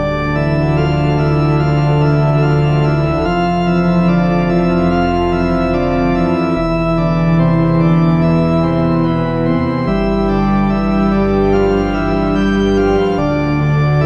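Background music of sustained, held keyboard chords, the chord changing about every three seconds.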